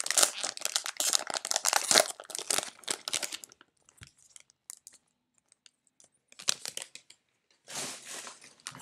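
Plastic cello-pack wrappers of football trading cards crinkling and tearing as they are handled and opened: dense crackling for about the first three and a half seconds, then quiet, then a brief rustle near the end.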